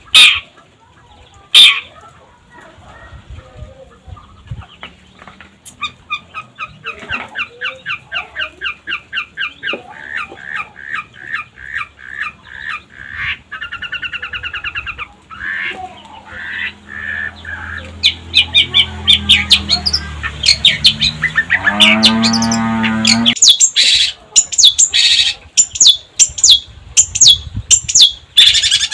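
Long-tailed shrike (cendet) singing: a few loud harsh calls, then long runs of quick repeated chattering notes, about five a second. Near the end comes a lower, drawn-out call with many overtones that stops abruptly, followed by more sharp calls.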